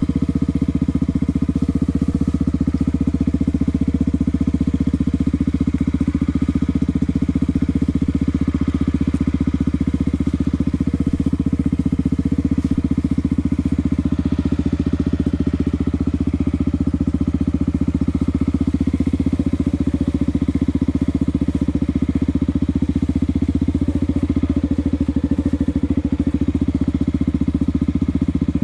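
Honda XR250 Tornado's air-cooled single-cylinder four-stroke engine running steadily at low throttle as the motorcycle is ridden slowly along a dirt trail.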